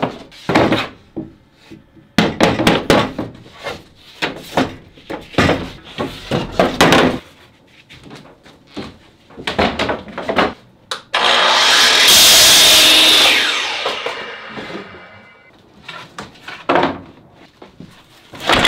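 Pieces of pallet wood knocking and clattering as they are handled and stacked. About eleven seconds in, a miter saw starts suddenly and cuts through a board: a few seconds of loud saw noise that trails off as the blade spins down.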